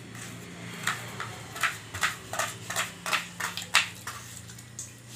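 Kitchen knife cutting red onion on a wooden cutting board: about a dozen sharp chops, roughly three a second, that stop near the end.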